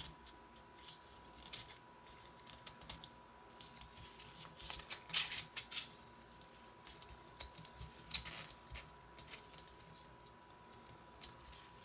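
Small plastic puzzle pieces clicking and rattling as a twisting character puzzle is turned by hand, in scattered bursts that are busiest about five seconds in and again about eight seconds in.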